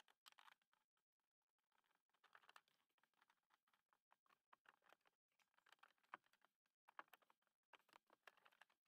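Near silence, broken by faint scattered clicks and ticks from gloved hands handling parts at the clutch pedal bracket under the dashboard, the clearest click about six seconds in.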